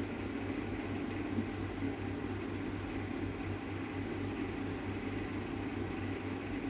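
Steady low mechanical hum with a faint hiss, pulsing evenly, and no distinct events.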